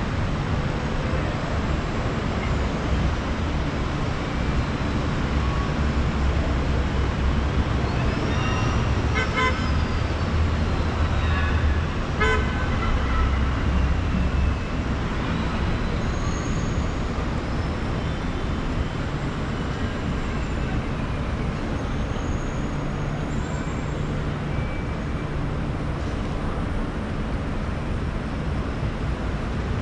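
City street traffic heard from high above: a steady rumble of engines and tyres, with car horns honking twice, about nine and twelve seconds in. Faint high tones glide up and down in the middle of it.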